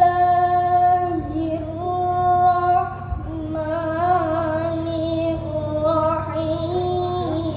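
A single high child's voice chanting in the melodic style of Quranic recitation, holding long notes that waver and slide between pitches. A steady low hum runs underneath.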